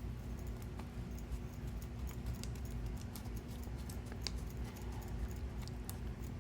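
Faint scattered light clicks and taps as the boxed silver rounds and their packaging are handled, over a steady low hum.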